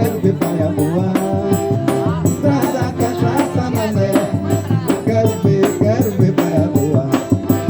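Live forró band playing: a quick, even shaker-like rattle beat over bass notes and held melody lines, with a voice now and then.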